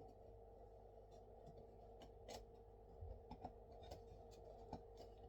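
Quiet, scattered light clicks and taps of wooden beehive frame parts being handled and pressed together by hand, over a faint steady hum.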